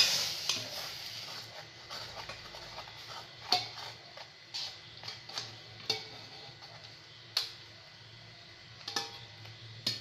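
Hot water pouring from a steel pot into flour in a steel bowl for about the first second. After that, a metal spoon stirs the ragi dough, clinking and scraping against the steel bowl every second or so.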